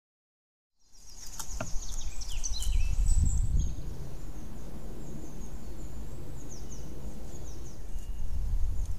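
Woodland ambience beginning about a second in: a steady low rumble with many high-pitched songbird chirps and trills, busiest in the first few seconds.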